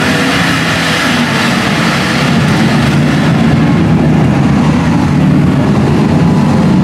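Off-road mud truck engine running hard and loud, a steady low drone that grows a little louder partway through.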